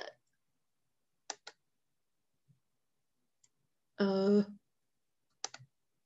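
A few light computer clicks, two about a second in and one more near the end, with a short hummed vocal sound from a woman between them.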